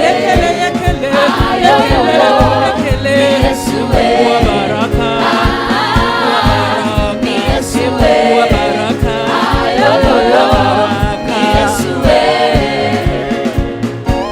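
Gospel worship team and choir singing a Swahili praise song over a band, with a steady drum and bass beat.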